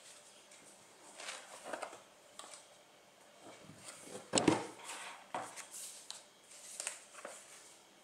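Handling noises as an aluminium laptop is picked up from a table and turned over: a series of short rustles and scrapes, with a sharp knock about four and a half seconds in.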